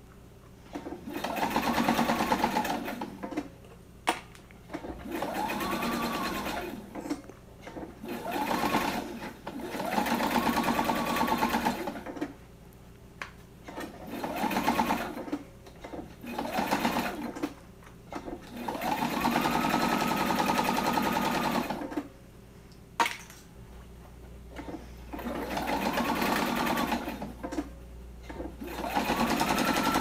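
Electric sewing machine stitching in stop-and-start bursts, about eight of them, each a few seconds long, with the motor speeding up and slowing down as the foot pedal is pressed and eased off. Short pauses come between the bursts, with a sharp click in one or two of them.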